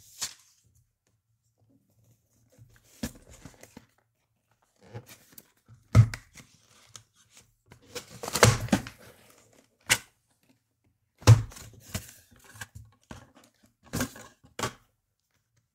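Paper and cardboard handled while a boxed kit is unpacked: a paper packing slip pulled off and a cardboard box turned over and opened, heard as short rustles and scrapes with a few sharp knocks, the longest rustle about two-thirds of the way through.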